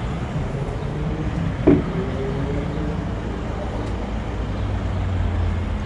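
Steady low rumble of street traffic. About two seconds in comes a sharp knock with a short scraping squeal, as the white plastic chair is moved on the tiled balcony floor.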